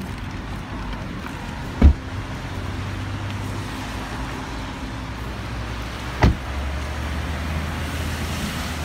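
Two car-door thumps about four seconds apart, the first the louder, over a steady low rumble of street traffic.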